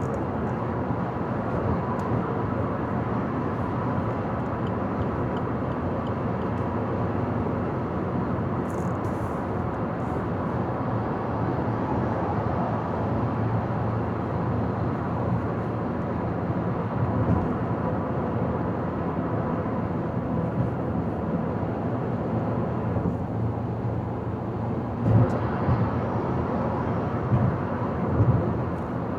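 Car driving at highway speed: steady tyre and road noise with engine hum. A few brief thumps near the end, like the tyres going over bumps or road joints.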